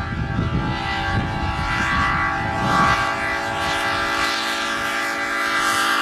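Locomotive-style air horn mounted on a pickup truck's roof, sounding one long, steady multi-note chord that grows louder as the truck approaches.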